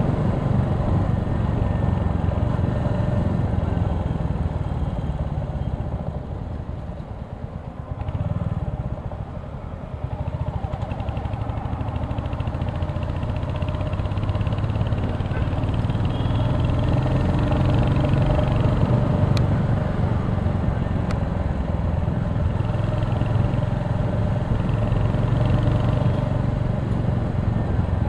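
Royal Enfield Hunter 350's single-cylinder engine running as the motorcycle rides through city traffic, heard from the rider's seat. The sound drops for a few seconds about six seconds in, then picks back up and holds steady.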